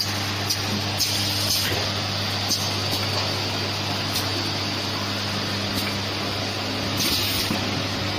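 Automatic bottle filling and capping machine running: a steady motor hum under a constant hiss, with occasional short clicks and a brief louder hiss about seven seconds in.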